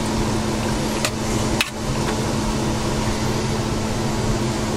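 Steady mechanical hum with a constant low tone. Two short clicks of a fork against an enamel plate come about a second in and again half a second later.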